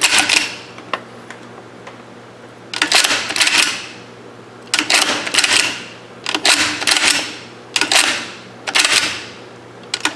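Mossberg 464 lever-action .30-30 rifle's finger lever being worked open and shut several times, its breech bolt sliding and locking with sharp metallic clacks in quick groups, a function check of the freshly reassembled action.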